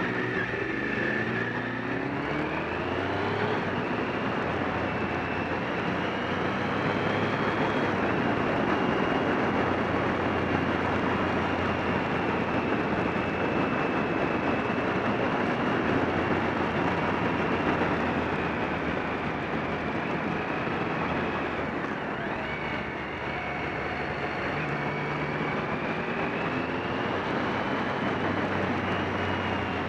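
Motorcycle engine running under way, with heavy wind rush on the onboard microphone. The engine pitch climbs as it accelerates in the first few seconds, holds fairly steady, then dips and climbs again from about 22 seconds in.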